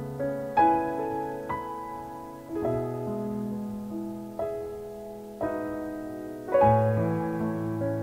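Slow background piano music: chords struck every second or so and left to ring and fade.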